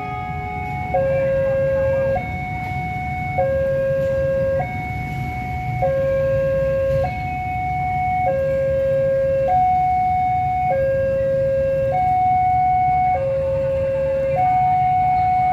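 Railway level-crossing warning alarm sounding a two-tone hi-lo signal, switching between a higher and a lower tone about every 1.3 seconds, with a steady low rumble underneath; the alarm means the crossing is closing for an approaching train.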